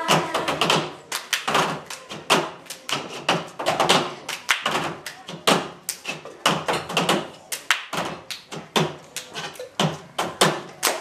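A group of girls doing a cup routine: hand claps and cups knocked and slapped on a tabletop in a fast repeating rhythm.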